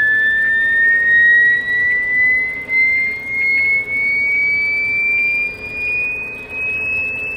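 A single tone slowly and steadily rising in pitch over hiss, heard through a CB radio's speaker: another station is transmitting it on the channel.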